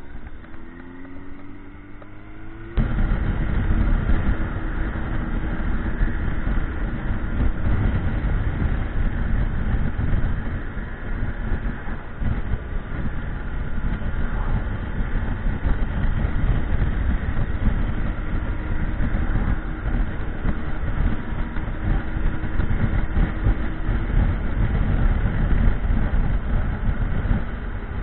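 Motorcycle ride: the engine note rises as the bike accelerates. About three seconds in, the sound jumps abruptly to a loud, steady rush of wind noise over the engine at riding speed.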